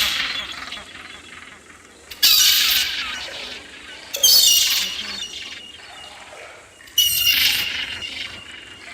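Three sudden bright crashes, at about two, four and seven seconds in, each ringing on and fading over a second or so.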